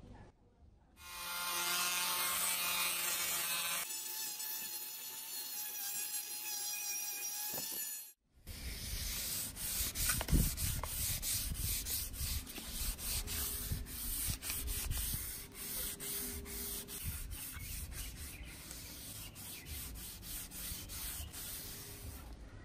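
Sandpaper rubbed by hand along a wooden axe handle in quick back-and-forth strokes, a dry scraping rasp repeated several times a second. Before it, for several seconds, a steady machine-like whine with a cut just after it.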